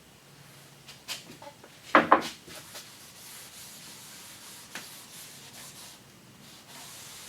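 Two sharp knocks about two seconds in, then steady rubbing across a wooden tabletop.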